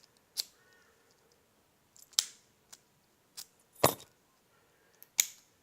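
A practice lock and lockpicking tools being handled: about six sharp separate clicks and clinks, the loudest about four seconds in.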